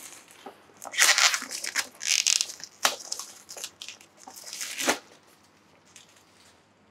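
Packaging of a board-game terrain pack being torn open and handled: about five short bursts of tearing and rustling.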